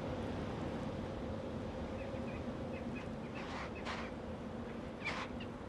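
Alpine ibex digging in snow for food: a few short crunching scrapes of snow over a steady low hum, with faint short high chirps in the background.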